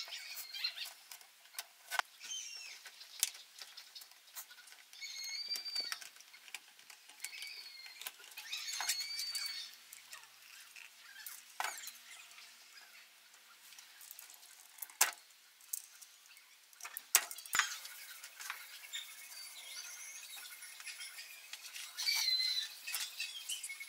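Small birds chirping on and off, with a few sharp clicks and knocks from wooden and metal lamp parts being handled and fitted together, the loudest about two-thirds of the way through.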